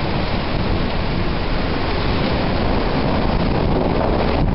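Storm rain falling steadily, with wind buffeting the microphone as a low rumble underneath.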